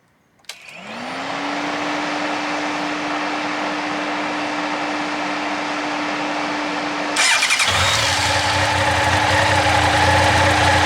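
Honda CB1100SF X-Eleven motorcycle: a click, then a steady electric whine that rises briefly in pitch and holds. About seven seconds in, the inline-four engine is started and settles into a steady idle.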